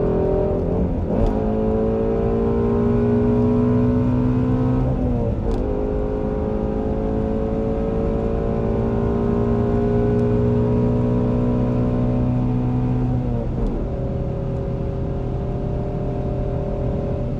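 Shelby GT350R's 5.2-litre flat-plane-crank V8 pulling through the gears under steady throttle. The revs climb slowly and dip at gear changes about 1, 5 and 13 seconds in, with a short sharp crack around the first two shifts.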